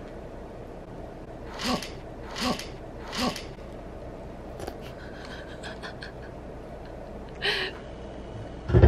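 A guinea pig tipping over a rubber-bottomed IKEA LURVIG food bowl, spilling its pellets: three short scraping knocks a little under a second apart, then a few faint clicks, and one more scrape near the end.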